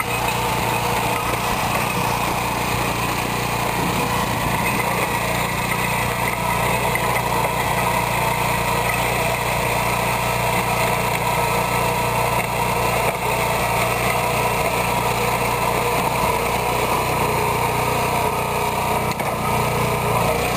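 Engine of a BCS 853 walk-behind tractor running steadily under load while pushing a snow blade through snow with an ice crust. The barbell weights hung on its wheels clank a bit as it bumps along.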